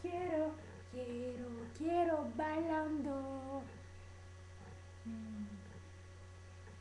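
A young girl singing held, melodic phrases that stop about three and a half seconds in, followed by a short, low hummed note about five seconds in. A steady low electrical hum runs underneath.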